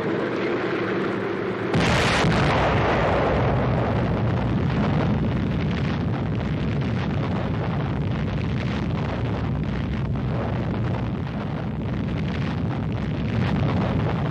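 Atomic bomb explosion on an early-1950s newsreel soundtrack: a sudden loud blast about two seconds in, then a long rumble.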